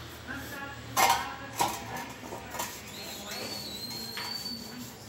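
Steel channel bars knocking against each other as they are handled and stood up, with two loud sharp metallic clanks about a second in and half a second later, then quieter scraping and rubbing on the steel.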